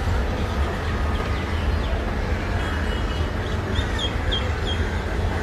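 Wind and rain: a steady rushing with a deep rumble from wind buffeting the phone's microphone. A bird gives a quick run of four short chirps about two-thirds of the way in.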